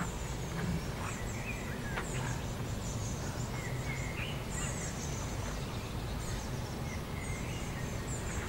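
Outdoor ambience: small birds chirping over and over throughout, above a steady low rumble of background noise.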